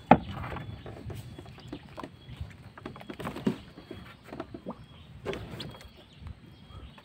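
Scattered knocks and bumps on a small fiberglass boat as someone moves forward in it, with the sharpest knock right at the start.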